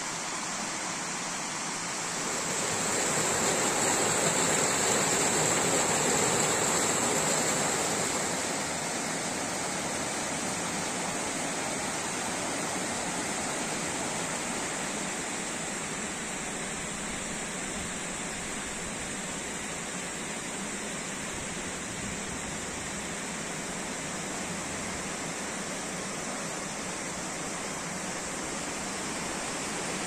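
Steady rushing of mountain water, growing louder for a few seconds about two seconds in, then settling back to an even rush.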